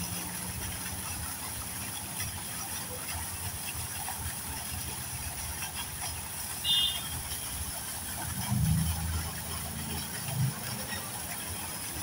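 Steady low outdoor background rumble with a constant high hiss, a short high chirp about seven seconds in, and a couple of louder low swells near the end.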